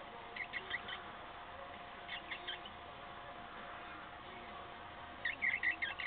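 Cockatiel chirping: three short clusters of quick, high peeps, the last one near the end the loudest.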